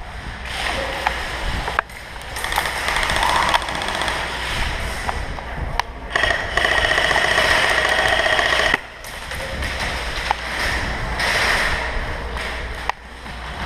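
Airsoft gun firing one sustained full-auto burst of about two and a half seconds, starting about six seconds in and stopping abruptly, among scattered clicks and handling noise.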